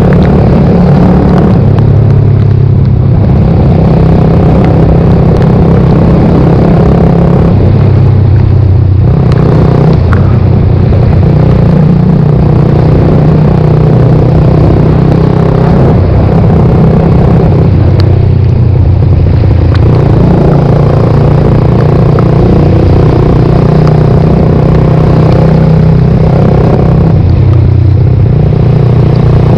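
Suzuki GSX-R125's single-cylinder four-stroke engine running loudly under way, its pitch rising and falling in steps as the throttle is opened and closed, with brief dips several times.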